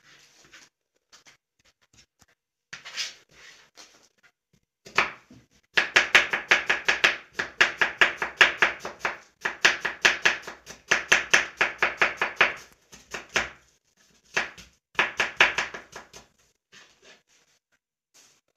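Kitchen knife chopping onion on a plastic cutting board: a few scattered cuts at first, then rapid, even chopping at about five strokes a second for several seconds, and two short runs of chopping near the end.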